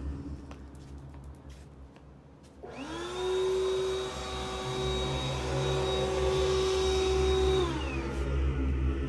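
Electric blower motor spinning up with a rising whine, running steadily with a high whine, then winding down near the end, over a constant low rumble.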